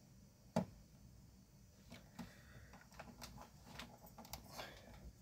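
Faint scattered clicks and ticks of metal multimeter test probes being placed and shifted on connector pins, with one sharper click about half a second in and a run of small ticks later on.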